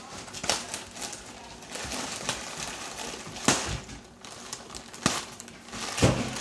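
Plastic poly mailer bag crinkling and rustling as it is torn open and pulled apart by hand, with several sharper crackles. A louder knock comes near the end.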